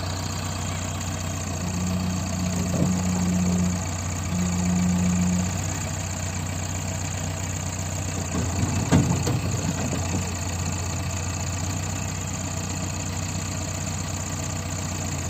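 Diesel engine of a JCB 3DX backhoe loader running steadily, with two short louder stretches carrying a steady hum in the first six seconds and a single sharp knock about nine seconds in.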